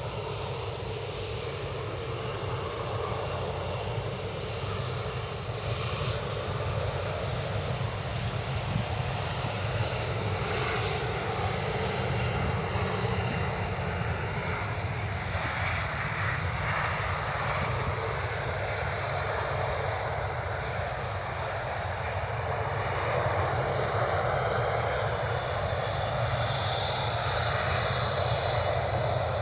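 Aircraft engines running with a steady, loud rushing noise that swells somewhat in the second half, with a higher whine near the end.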